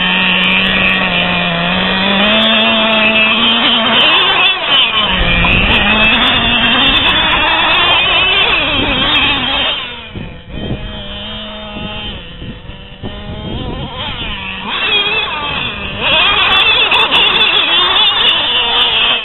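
Traxxas Revo 2.5 RC truck's small nitro engine revving hard with a high-pitched whine that rises and falls with the throttle. It drops to a quieter, steadier running after about ten seconds, then revs hard again for the last few seconds.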